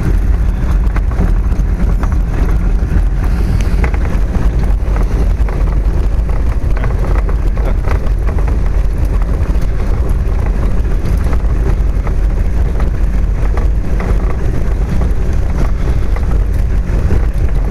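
Velomobile rolling along a gravel trail, heard from inside its shell: a loud, steady rumble of the tyres on the stone surface with scattered small crackles.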